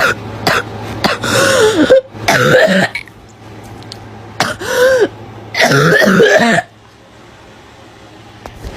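A girl's barking, gagging cough: a fit of several coughs, a pause, then a second fit about halfway through.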